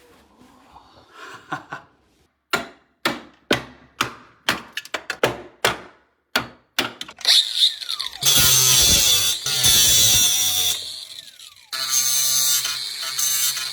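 A quick string of about a dozen sharp knocks on wood, then a power tool runs in two bursts of a few seconds each, a brief pause between them.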